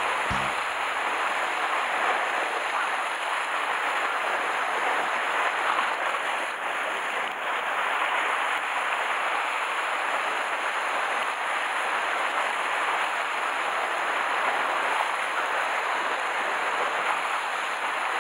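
Sea swell washing over and breaking against rocks: a steady rushing of white water with no separate wave crashes standing out.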